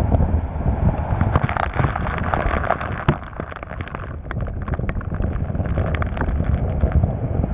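Sea spray and waves crashing against the side of a motorboat running fast through chop, with many sharp splash hits and wind buffeting the microphone. It eases briefly about three seconds in.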